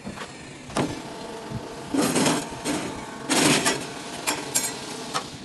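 Daribo fish and meat strip cutter running with a steady motor hum while its blades chop through whole fish, giving a string of irregular knocks and short louder bursts, the loudest about two and three and a half seconds in.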